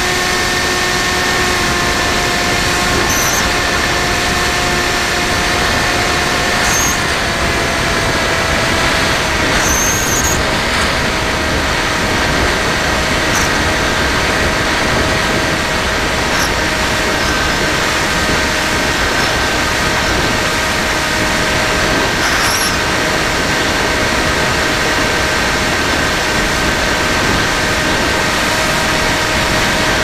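Electric motor and propeller of an FPV Raptor RC plane heard from its onboard camera: a steady whine in several pitches over a loud rush of wind on the microphone. The pitch drops slightly about seven to ten seconds in as the throttle eases.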